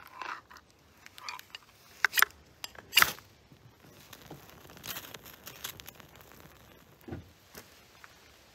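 Dry tinder and pine needles crackling and rustling as they are laid on a freshly lit campfire, with a few sharp snaps about two and three seconds in and lighter crackles after.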